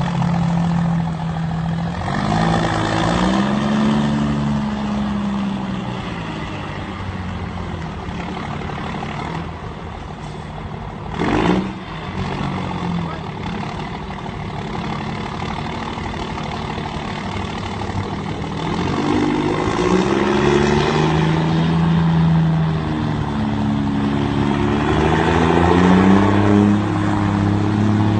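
Volkswagen Constellation truck's diesel engine running and being revved up and let back down a few times, its pitch rising and falling in slow swells, mostly near the start and toward the end. A brief loud burst of noise cuts in near the middle.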